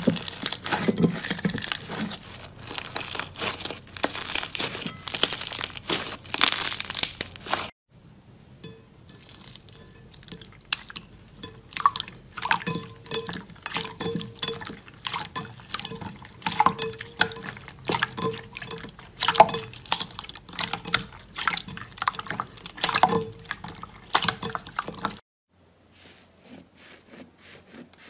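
Hands kneading and squeezing slime. For the first several seconds it is a dense run of crackles and pops; then clear slime is squished in a glass bowl with separate wet squelches and air pops; near the end a thick, puffy slime is pressed more softly and quietly.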